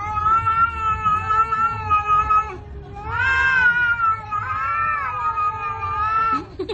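A domestic cat yowling in three long, drawn-out, wavering calls, the first lasting about two and a half seconds.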